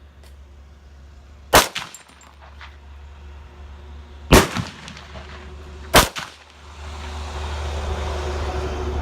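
Three rifle shots with short echoes, a little under three seconds and then about a second and a half apart, firing gas-checked cast-bullet handloads. After the third shot a steady rumbling noise swells and holds.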